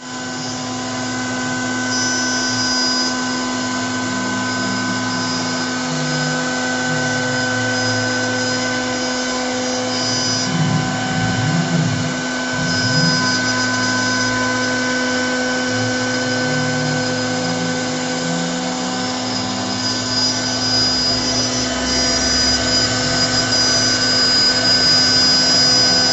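CNC router carving: the spindle runs with a steady whine while the lower motor tones shift and glide in pitch as the axes move.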